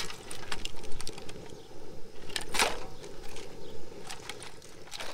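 Steel foothold traps and their chains clinking and rattling against each other and the metal pot as they are pushed down into simmering water, with one louder clank about two and a half seconds in, over a steady hiss.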